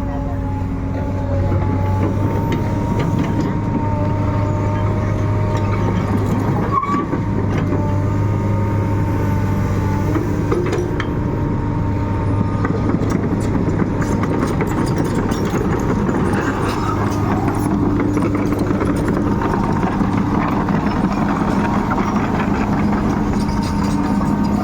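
Komatsu PC200-8 excavator's diesel engine running steadily, with a high steady whine and occasional sharp clanks.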